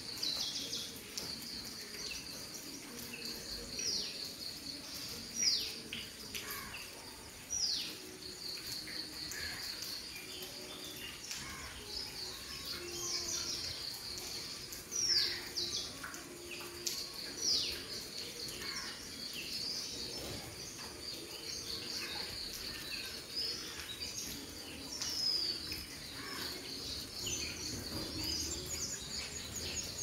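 Outdoor birdsong: several sharp whistled calls that sweep quickly downward in pitch, repeated every few seconds, over a steady high-pitched pulsing trill like that of insects.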